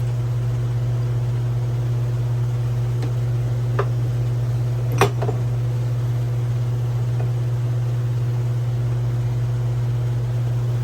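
A steady low machine hum, like a fan or similar appliance running. Over it come a couple of small clicks as metal jack parts are handled while a pin is worked at; the sharpest click is about five seconds in.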